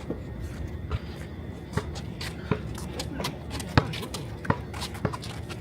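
Basketball being dribbled on a hard court: sharp bounces at an uneven pace, roughly one every half to three-quarters of a second, with one louder hit near the middle.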